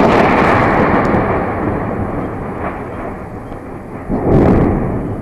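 A thunderclap from a nearby strike rumbling loudly and slowly fading, with a second swell of rumbling about four seconds in.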